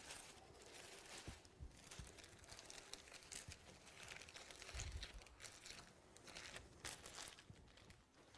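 Faint crinkling handling noise with a few soft low thumps.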